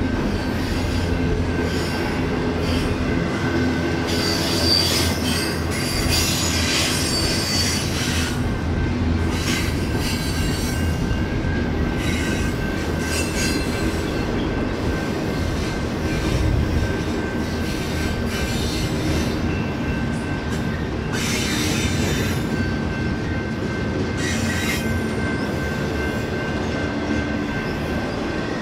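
Double-stack intermodal freight train's container well cars rolling past, a steady rumble and rattle of steel wheels on rail. Stretches of high wheel squeal come in about four to eight seconds in and again twice after about twenty-one seconds.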